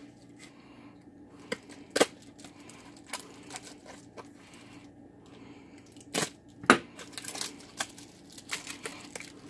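Plastic bubble-wrap bag being slit with a folding utility knife and crinkled in the hands: scattered rustling and tearing with a few sharp clicks, the loudest about two seconds in and again around seven seconds.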